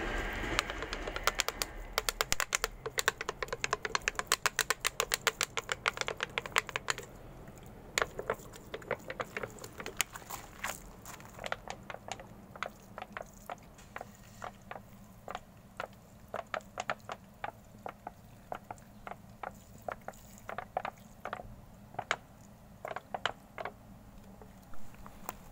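A handheld plastic spray bottle clicking over and over as it is worked to spray water onto seedlings: a fast even run of about five clicks a second, then slower, uneven clicks from about seven seconds in.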